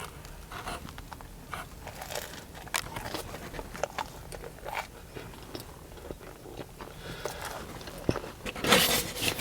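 Close-miked chewing of a chicken parmesan meatball sub: irregular soft bites, mouth smacks and small crunches. A louder noisy burst comes near the end.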